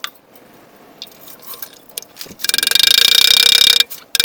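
A power tool running in one burst of about a second and a half, a fast buzzing pulse with a steady whine, then a short second burst near the end, with a few light clicks before.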